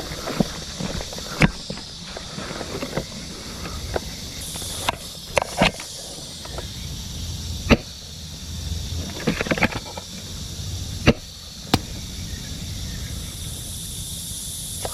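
A steady, high-pitched insect drone with about seven sharp clicks and cracks scattered over it, a few of them close together near the middle.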